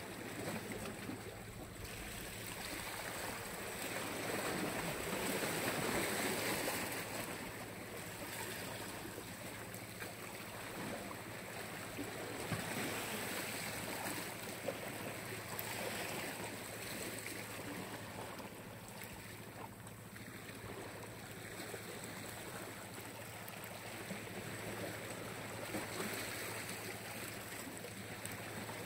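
Small Black Sea waves washing onto the shore: a steady rush of surf that swells and eases slowly.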